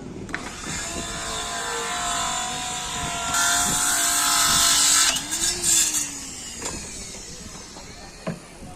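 A motor vehicle passing close by: its noise builds over several seconds, then drops away sharply about five seconds in, with a lowering engine note. A few short knocks follow.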